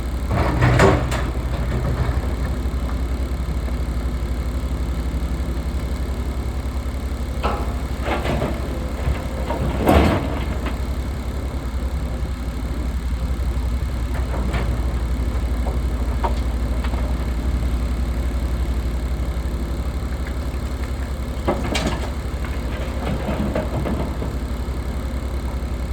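SDLG 6150 hydraulic excavator's diesel engine running with a steady low drone under load. Short clattering noises rise above it about a second in, twice around 8 to 10 seconds, and again near the end.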